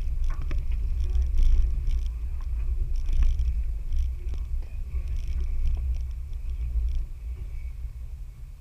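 Off-road 4x4 vehicle's low engine rumble with scattered knocks and rattles, typical of driving slowly over a rough trail.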